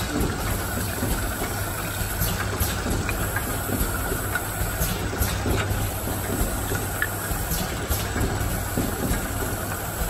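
Automatic small-bottle filling and capping line running: a steady machine hum and hiss, with occasional light clicks.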